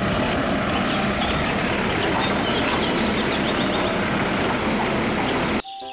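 Mack automated side-loader garbage truck running while its hydraulic arm lifts and tips a wheelie bin: a loud, steady mechanical noise with faint high squeaks partway through, cut off suddenly near the end.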